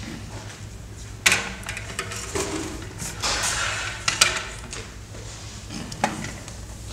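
Black metal music stand being handled and moved on a wooden stage: sharp metallic clanks about a second in, around four seconds in and near six seconds, with scraping and rattling between them, and footsteps on the wooden floor.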